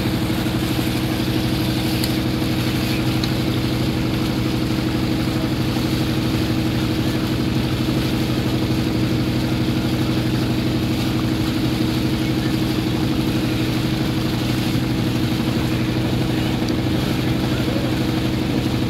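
A motorboat's engine running steadily at a constant speed, with a fast, even low throb and an unchanging pitch.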